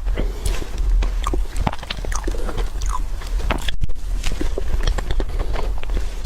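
Close-miked eating: biting and chewing, with many short, crisp clicks and crackles over a steady low hum, and a brief dropout a little past the middle.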